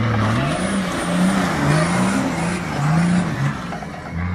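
Nissan Patrol off-roader's engine revving hard on a steep dirt climb. The pitch rises and falls several times as the throttle is worked, then settles back to a steadier, lower note near the end.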